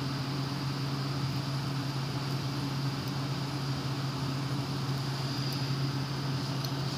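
Fidget spinner spinning, a steady whirring hum with a faint high whine from its bearing.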